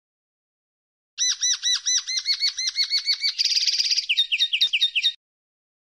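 Male common linnet singing one song phrase: starting about a second in, a run of repeated rising-and-falling notes, about seven a second, then a brief fast buzzy trill and a string of sharp downward notes, cutting off suddenly.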